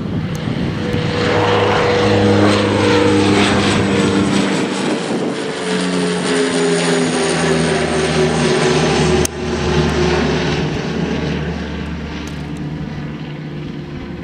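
Embraer EMB-120 Brasilia twin-turboprop climbing out after takeoff and passing overhead: a steady propeller drone with a buzzing tone that drops in pitch as it goes by. It is loudest in the first few seconds and fades toward the end. A single sharp click about nine seconds in.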